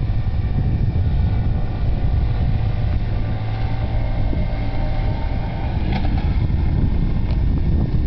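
Honda C50 Cub moped's 49 cc four-stroke single-cylinder engine running at steady revs as it pulls slowly uphill in the distance, under a heavy wind rumble on the microphone.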